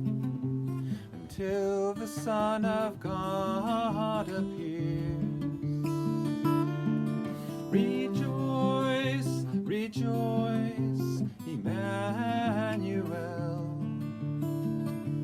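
An Advent hymn sung by a single voice, with strummed acoustic guitar underneath; the sung line wavers in pitch over steady guitar chords.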